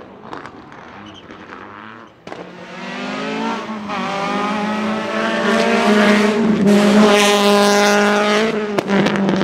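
Rally car approaching flat out, its engine note growing louder and climbing in pitch, dropping once with a gear change and climbing again, then breaking off briefly just before the end.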